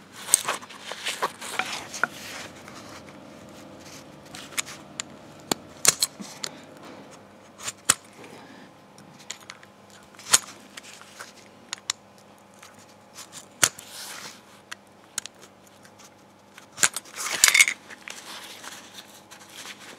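Scattered sharp metal clicks, taps and short scrapes as the worn ball joint of an old anti-roll bar link is taken apart by hand on a concrete floor, with a longer scrape near the end.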